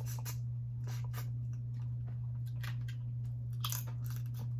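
Close-up eating of cold blue crab: chewing and crunching, with scattered sharp clicks of shell, strongest near the end. A steady low hum runs underneath.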